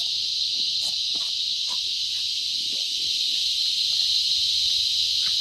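Steady, high-pitched insect chorus, a continuous shrill hiss, with a few faint scattered taps and clicks.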